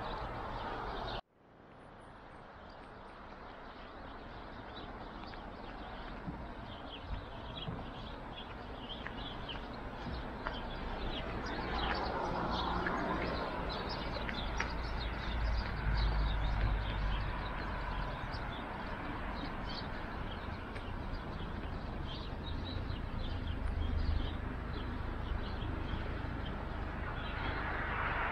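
Small birds chirping over and over against a low outdoor rumble of wind and traffic. A vehicle swells past about twelve seconds in, and another comes up near the end.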